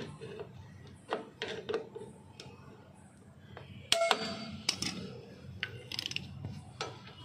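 Scattered metal clicks and clinks of steel pliers and drum-brake return springs and shoe hardware being handled, with a sharp metallic clank that rings briefly about four seconds in.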